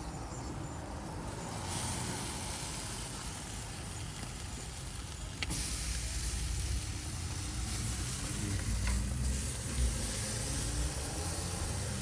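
Marinated chicken sizzling on a barbecue grill: a steady hiss that gets louder about two seconds in and again about five and a half seconds in, where there is a sharp click. A low, uneven rumble runs underneath.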